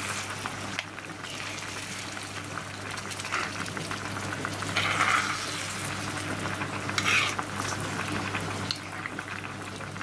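Food sizzling in a frying pan, a steady hiss over a low hum, with two brief louder sounds about five and seven seconds in.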